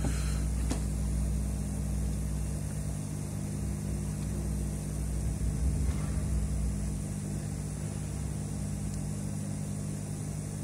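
Steady low mechanical hum of several held tones over a low rumble, which eases about two and a half seconds in, with a couple of faint clicks near the start.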